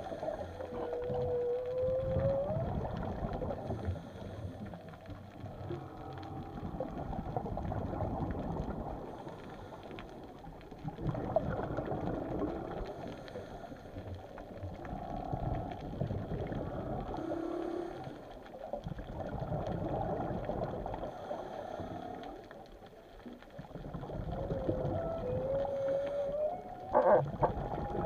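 Whale song recorded underwater: a run of long moans and grunts, with a clear rising whoop about a second in and another near the end.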